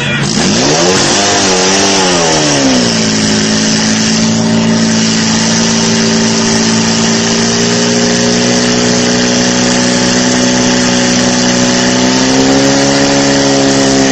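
Portable fire pump's engine revving up and down, then held steady at high revs, its pitch rising slightly twice later on. A steady hiss runs under it.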